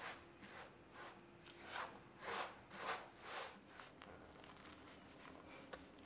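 Wooden spoon stirring a thick mix of sweetened condensed milk, cocoa powder and crushed biscuits in a stainless steel bowl: a run of soft strokes, about two a second, that grows fainter after about four seconds.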